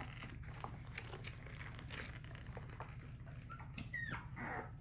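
Two-week-old American bully puppies in the whelping box, with a couple of short, high squeaks near the end, over faint scattered ticks and a steady low hum.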